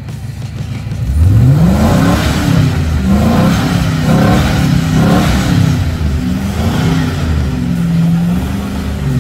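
Engine of a four-wheel-drive off-road vehicle revving hard. It climbs sharply about a second in, then rises and falls again and again, about once a second.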